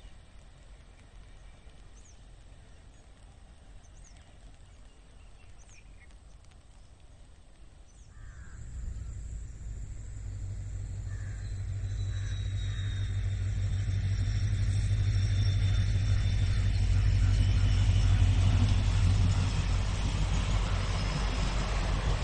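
Quiet countryside air with a few scattered bird chirps. About eight seconds in, a locomotive-hauled passenger train's low rumble and steady hum start and swell as it approaches, loudest near the end, with faint high whining tones above.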